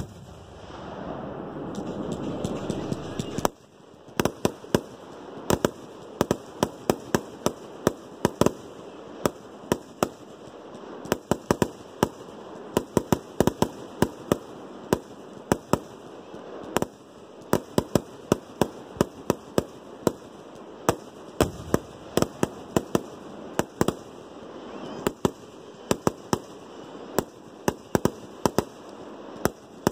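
Fireworks going off: a rush of rumbling noise for the first few seconds cuts off suddenly, then a long run of sharp cracks and pops follows, several a second.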